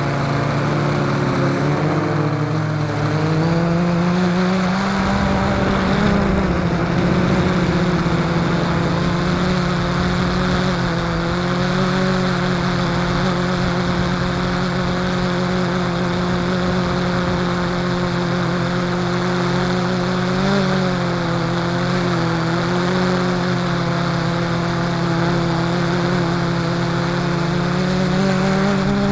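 XK X380 quadcopter's four motors and propellers droning steadily in flight, heard close up through the drone's own camera. The pitch rises slightly a couple of seconds in and wavers briefly a few times as the motor speeds change.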